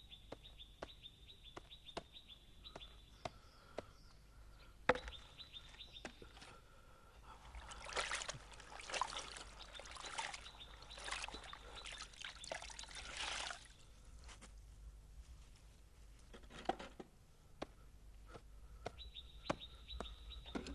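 Water pouring and trickling for about six seconds in the middle. Before and after it there is a faint high steady tone with light, regular ticks.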